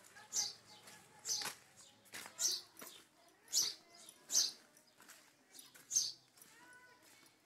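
Footsteps squelching in wet mud and shallow floodwater, about one step a second.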